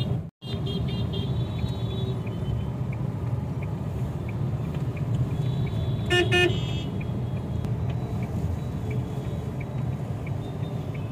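Steady engine and road rumble heard from inside a car in city traffic, with a vehicle horn honking once, briefly, about six seconds in. Faint ticking about twice a second runs under it.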